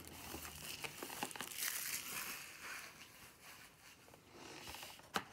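Cardboard game box and paper rulebook being handled: faint rustling and scraping of card and paper, with small clicks and a sharper tap near the end.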